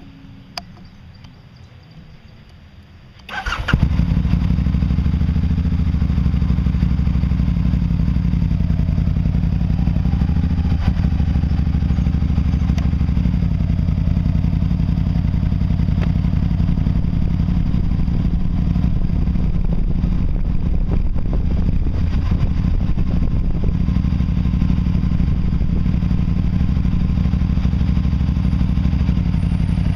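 Can-Am's engine starting with a sudden burst about three seconds in, then running at a steady level as the machine is ridden.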